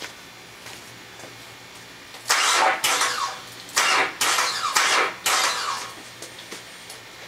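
2004 Nissan Xterra's V6 engine trying to start, catching in about six rough, sputtering bursts over three and a half seconds before dropping back quieter. This is a hard, misfiring start-up that the owner ties to a cylinder 6 misfire code.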